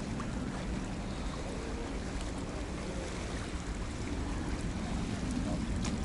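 Calm sea lapping and washing gently against concrete breakwater blocks, with steady wind on the microphone.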